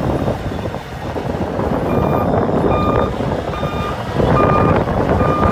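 Heavy earthmoving machine's engine running under load, with a reversing alarm starting about two seconds in and beeping steadily, roughly one beep every 0.8 seconds.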